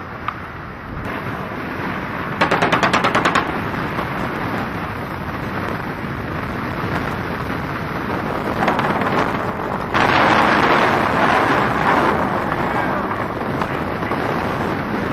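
Bursts of automatic machine-gun fire over steady wind and engine noise. A short rapid burst of about nine shots comes near 2.5 s in, then longer, louder stretches of fire around 9 s and from about 10 to 12 s.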